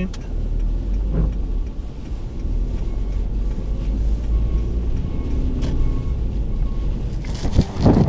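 Car driving on a snow-covered road, heard from inside the cabin: a steady low rumble of engine and tyres. Near the end it cuts to loud wind buffeting the microphone.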